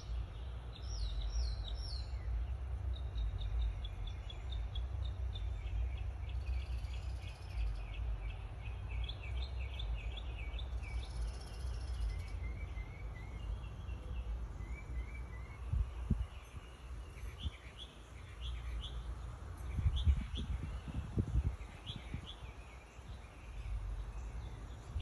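Outdoor ambience: small birds chirping in many short repeated calls over a steady low rumble, with a few low bumps in the second half.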